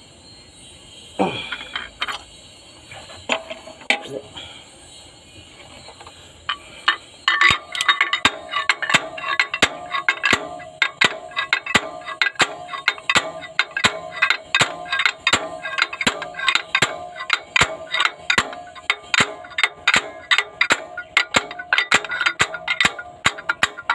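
Homemade slide-hammer puller on a Cat 3116 cylinder head, pulling out a broken injector sleeve. A few scattered metal knocks come first, then from about seven seconds in a steady run of sharp metal-on-metal blows, two to three a second, each ringing briefly.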